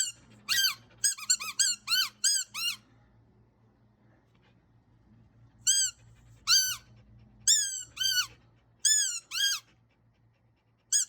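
Squeaky toy ball being chewed by a young German Shepherd: bursts of rapid, high-pitched squeaks, each briefly rising then falling in pitch, as her jaws squeeze it. A run of about eight squeaks, a pause of about three seconds, then another run, with a few more right at the end.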